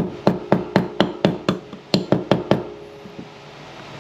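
Small hammer tapping a 1/16-inch pin punch in quick sharp strikes, about eleven at roughly four a second, driving a pin out through the top of a Smith & Wesson Bodyguard 2.0 pistol slide; the tapping stops about two and a half seconds in.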